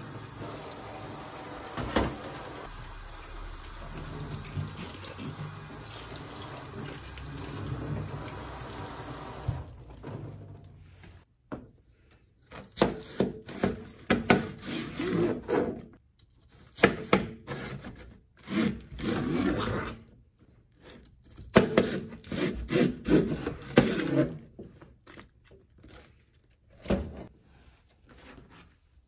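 A kitchen tap runs over napa cabbage leaves being rinsed in a steel sink. About ten seconds in the water stops, and a kitchen knife cuts through cabbage leaves on a plastic cutting board in short, irregular bursts with pauses between.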